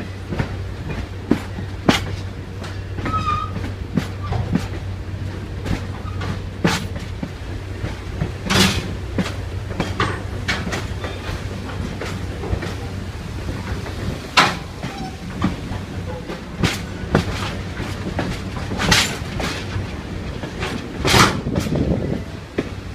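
Passenger train rolling along the track, heard from the side of a car: a steady low rumble with irregular sharp clacks and clunks from the wheels and trucks running over the rails.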